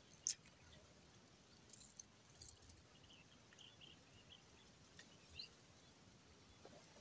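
Near silence: faint outdoor ambience, with one sharp click just after the start and a few faint, short high chirps and ticks.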